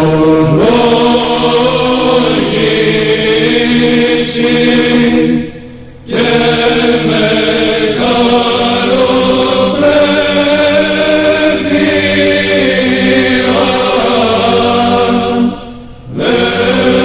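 Greek Orthodox Byzantine chant: voices singing long, slowly moving phrases, with short breaks between phrases about six seconds in and again near the end.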